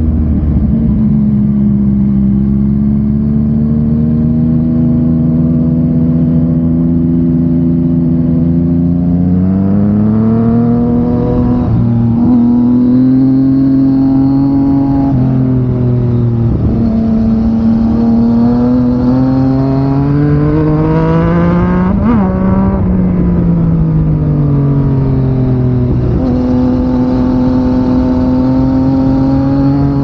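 Yamaha MT-09's 847 cc inline-three engine running through an Akrapovic exhaust while the motorcycle is ridden. It holds a steady note for the first third, then the pitch climbs and drops several times as the rider accelerates and changes gear. It peaks sharply about two-thirds through, then falls away and settles to a steady note near the end.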